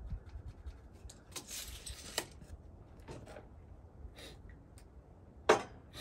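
Workshop handling sounds: light clicks and taps, a scrape lasting under a second, and one sharp knock about five and a half seconds in, as lumber and tools are moved about on a work surface.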